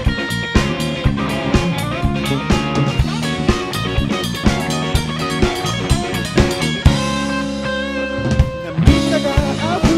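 Rock band playing live: electric guitars, bass guitar and drum kit in an instrumental passage with no singing, the drums keeping a steady beat. Near the end the drums thin out for a couple of seconds, leaving held guitar and bass notes, then come back in.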